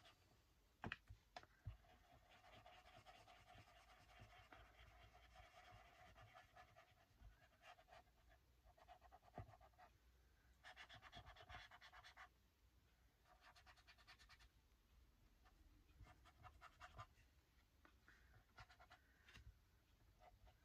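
Faint scratchy rubbing of a brush working colour over paper, in several short spells, with a few light clicks in between.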